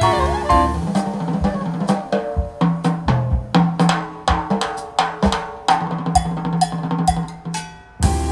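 Jazz drum kit solo: a busy run of snare, tom and bass-drum strokes with cymbal hits. About eight seconds in, the band comes back in.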